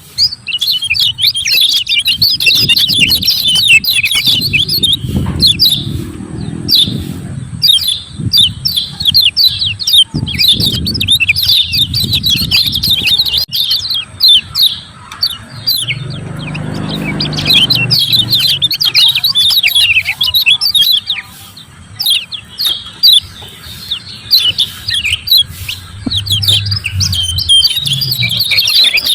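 Kecial kuning white-eyes giving their 'ciak ciak' call: fast, dense runs of short, sharp, high chirps, thinning out for a few seconds around the middle. The call is used as a lure to provoke other kecial kuning into calling.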